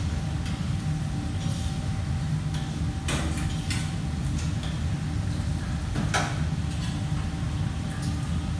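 Kitchen room sound: a steady low machine hum with a faint high steady tone, broken by a few short clatters of kitchenware being handled, the loudest about six seconds in.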